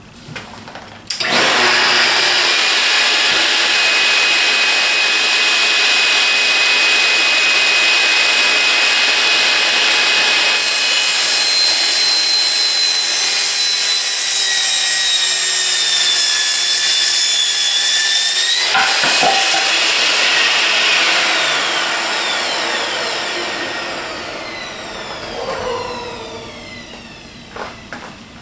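Festool TS 55 plunge track saw switched on about a second in and running at speed as it cuts plywood along its guide rail. It is switched off about two-thirds of the way through and winds down with a falling whine.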